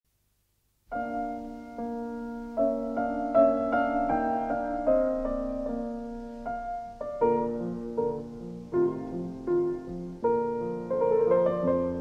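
Piano music playing a gentle melody of single notes and chords, starting about a second in.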